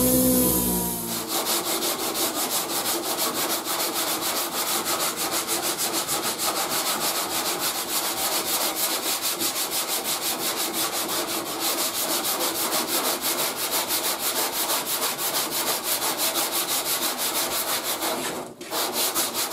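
Body filler on a steel truck panel being hand-sanded in fast, even back-and-forth strokes, with a short pause near the end. At the very start, an electric sander runs briefly before the sound cuts to the hand strokes.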